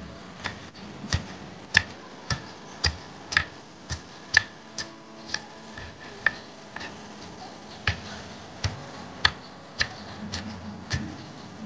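Kitchen knife slicing red chillies on a wooden cutting board: sharp knocks of the blade against the board, about two a second and unevenly spaced, with a pause of over a second midway.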